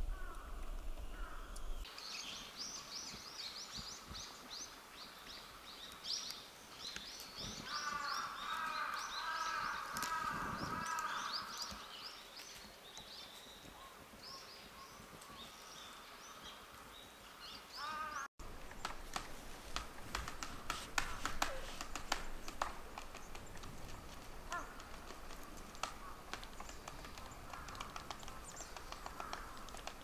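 Wild birds calling in winter woodland: many short, high chirps, with a lower, harsher repeated call around the middle. After a cut, a run of irregular sharp clicks and taps fills the second half.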